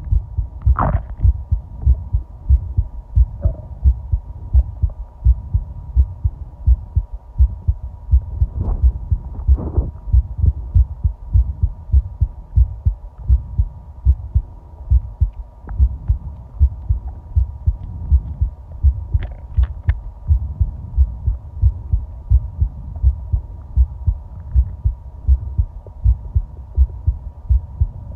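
Human heartbeat picked up close against the body while lying down: a steady, regular run of low thumps. A faint steady hum runs underneath, with a few brief higher sounds near the start and around ten and twenty seconds in.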